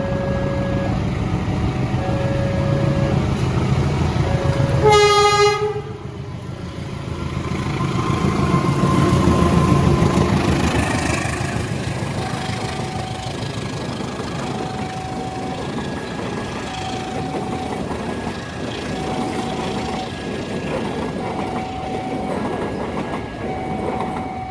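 Train passing with a low rumble while an alarm beeps in a repeating two-tone pattern. A locomotive horn gives one short, loud blast about five seconds in.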